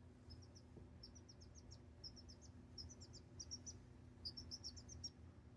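Faint high-pitched chirping: quick runs of short, high animal chirps repeating every half second or so over a faint steady low hum.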